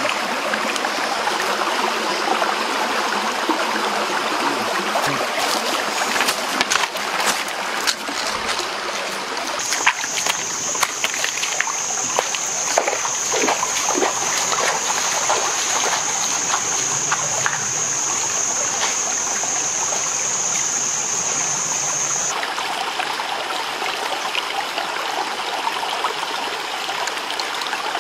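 Stream water running and trickling, with scattered splashes and knocks. A steady high-pitched whine sets in about ten seconds in and cuts off suddenly about twelve seconds later.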